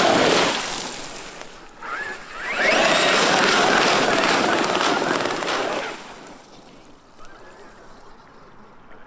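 Traxxas X-Maxx RC monster truck's tyres churning through a muddy puddle: a loud rush of spraying water in two passes, the second lasting about three seconds, then much quieter as the truck leaves the water.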